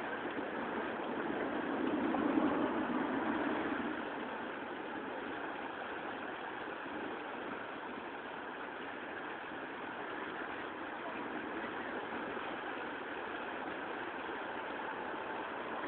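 Fast-flowing Danube floodwater rushing and churning around a submerged metal railing: a steady rushing noise that swells a little a couple of seconds in.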